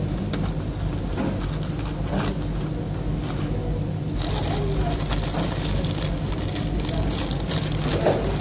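Fast-food restaurant ambience while eating: a steady low hum under light clicking and clatter of a plastic fork and cardboard food box, with faint voices in the background.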